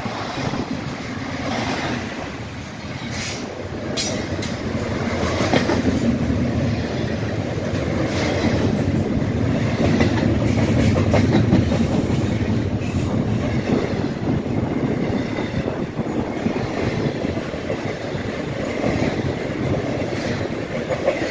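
Train cars rolling past on the rails: a steady rumble of wheels on track, loudest about halfway through, with a few sharp clicks three to four seconds in.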